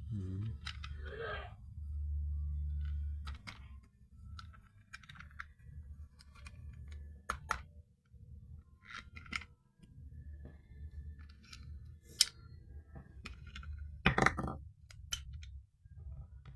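Scattered clicks, taps and rustles of plastic and cardboard being handled while a toy RC tank is unboxed, over a low steady hum, with one louder short noise near the end.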